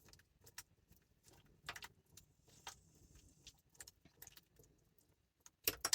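Faint, scattered clicks and light taps of small kitchen containers being handled, with a couple of sharper clicks near the end.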